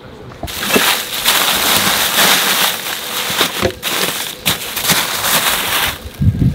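Thin black plastic bags crinkling and rustling as they are handled and packed into a car fridge. The crackling stops suddenly about six seconds in.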